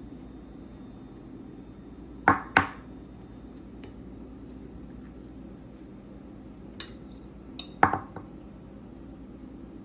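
A utensil clinking against a dish as the tomato mixture is spooned onto bread slices: two sharp clinks about two seconds in, a couple of lighter ticks near seven seconds, then another clink near eight seconds. A low steady hum runs underneath.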